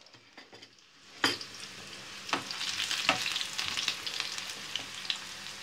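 Chopped onion frying in oil in a frying pan, sizzling steadily with crackles. The first second is nearly quiet; then a sharp knock, and a couple more clicks of a metal spoon against the pan come through the sizzle.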